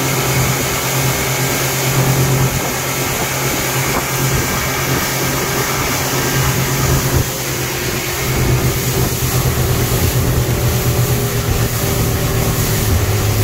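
115-horsepower outboard motor running steadily at cruising speed with the rush of water from the wake. The engine's hum stays even, with a slight dip in level about halfway through.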